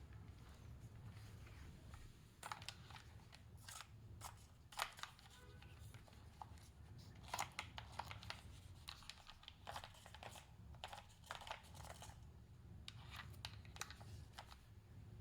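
Faint scattered clicks and crinkles, as of small objects and packaging being handled, over a low steady hum.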